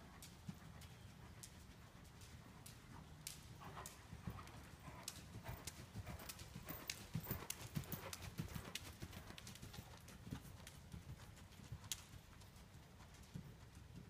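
A horse's hoofbeats cantering on soft arena footing, faint, growing louder as the horse passes close by in the middle and fading as it moves away.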